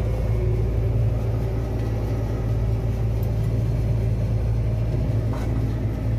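Combine harvester running steadily while picking corn: a continuous low engine drone with a steady hum.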